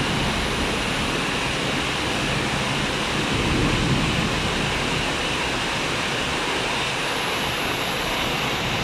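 Heavy rain pouring steadily onto trees and buildings: an even, unbroken hiss.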